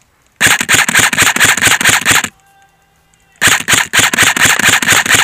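Airsoft electric rifle firing on full auto in two bursts of about two seconds each, about a second apart: a rapid, steady stream of shots.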